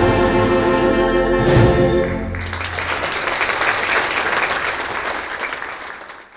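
Jazz band and theatre organ holding the tune's final chord, with a low hit about one and a half seconds in; the chord ends after about two seconds. Audience applause follows, fading out near the end.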